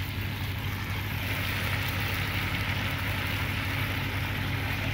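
Meat sizzling in hot oil in a kazan: a steady frying hiss over a steady low hum.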